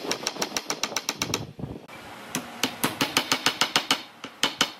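A hammer tapping a wooden wedge into a tenon joint: quick runs of light, sharp taps, about eight or nine a second, with a short pause about a second and a half in and a last few taps near the end.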